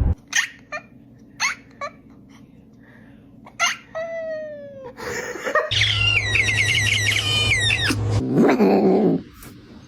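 A domestic cat making a run of pitched calls, one falling in pitch, with a few short clicks near the start.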